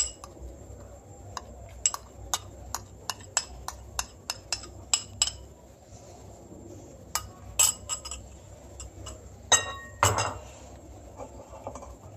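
Metal spoon clinking and scraping against a bowl while ginger-garlic paste is scraped out, a run of short sharp clinks about three a second. Near the end comes a louder ringing clink and a knock.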